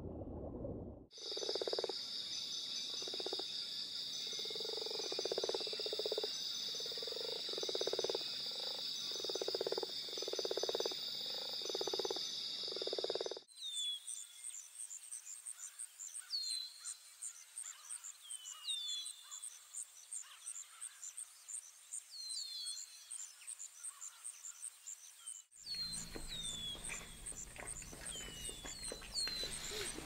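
Rainforest ambience. Frogs croak about once a second over a steady high insect drone. About thirteen seconds in it cuts to a rapid high ticking trill with short, repeated falling chirps, and near the end it cuts again to a similar chirping mix over a low hum.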